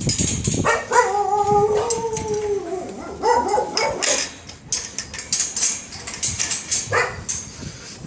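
A dog howls once, a long call of about two seconds that dips in pitch at its end, then gives a few shorter yips. A short sharp bark follows near the end, with scattered clicks and rattles between the calls.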